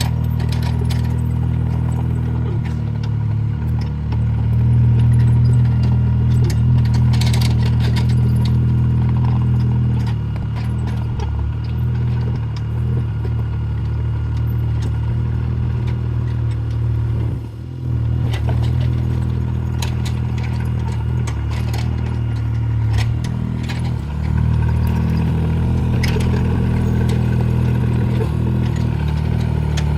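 Small excavator's diesel engine running under changing load, getting louder for several seconds about a quarter of the way in and dropping away briefly just past halfway, with scattered clanks and rattles of metal.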